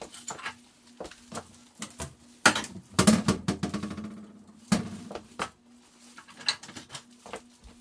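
Dishes and utensils clinking and clattering, with a louder clank about three seconds in that rings on for about a second. A faint steady hum runs underneath.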